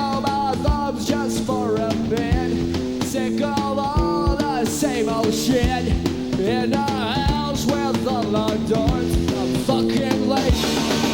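Punk rock band playing live: drum kit keeping a steady beat under electric guitar and bass, with a singing voice over the top.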